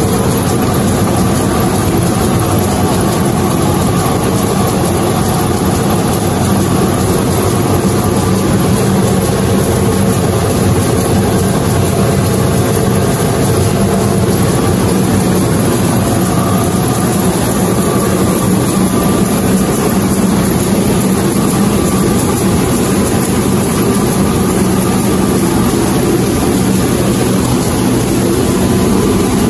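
A 25D combined rice milling machine, driven by three-phase electric motors, running under load while milling rice: a loud, steady machine drone with a constant low hum that does not change.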